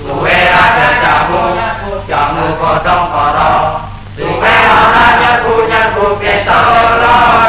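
A choir singing in long held phrases of about two seconds each, with brief breaks between them.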